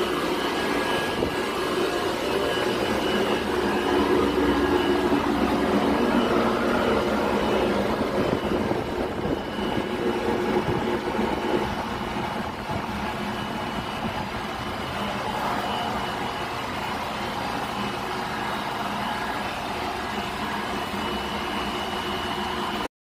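Steady, loud drone of a ship's auxiliary machinery room: electric-motor-driven pumps and other plant running together, with several steady tones over a dense hum. The sound drops out for a moment right at the end.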